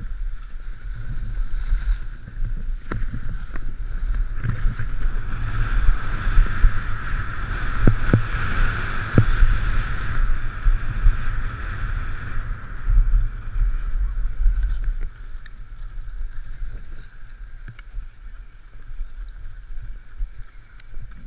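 Skis sliding and scraping over packed snow with a steady hiss, and wind buffeting the action camera's microphone with a low rumble. It is loudest in the middle and gets quieter after about fifteen seconds as the skis slow.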